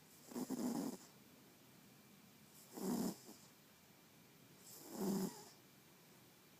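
Snoring in sleep: three drawn-out snores about two and a half seconds apart, with quiet breathing between them.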